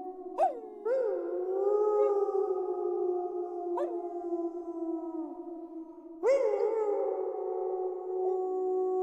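A pack of wolves howling in chorus: several long howls overlap, each held on a steady pitch. New howls break in sharply about half a second in, again about a second in, and once more just past six seconds.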